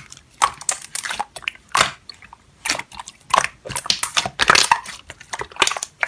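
Slime being squeezed and pressed by hand, giving a run of irregular crunchy crackles and pops, several a second.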